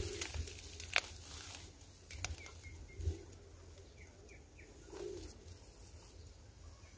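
A dove cooing softly three times, with a few faint small-bird chirps. A sharp light click about a second in and a few softer ones, from rustling vegetation or handling.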